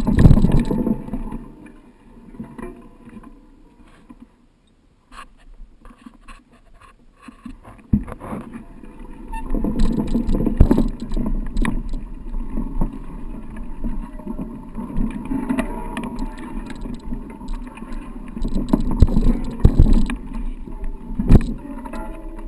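Mountain bike riding over rough trail: an uneven rumble with scattered knocks and rattles. It goes quiet for several seconds near the start, then picks up again.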